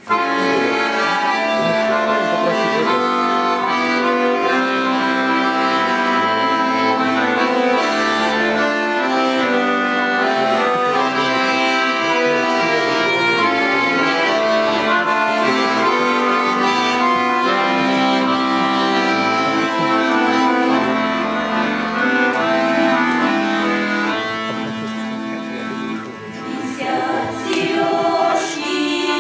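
Accordion playing a tune: a sustained melody over a pulse of low bass notes. The music briefly drops in level near the end.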